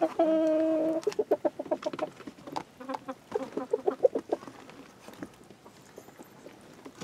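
Hens in a coop clucking: one loud, drawn-out call right at the start, then a run of quick clucks that dies down after about four and a half seconds.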